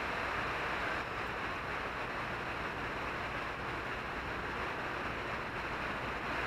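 River water rushing steadily over and between rocks, a continuous even hiss.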